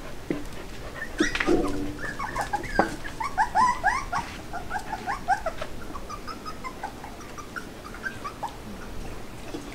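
Young border collie puppies whimpering and squeaking: a quick run of many short, high, upward-sliding squeals, thickest in the middle and thinning out near the end, with one lower, louder call about a second and a half in.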